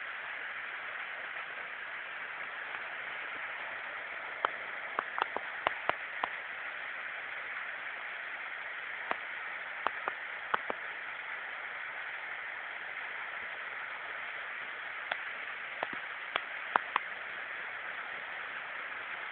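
Small waterfall rushing down a rock face: a steady hiss of falling water. Short sharp clicks stand out over it, in a cluster about five seconds in, a few around ten seconds and more towards the end.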